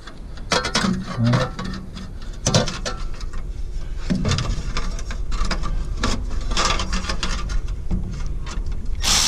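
Irregular clicks, knocks and scraping of parts and tools being handled during repair work, over a steady low rumble, with a short loud hiss near the end.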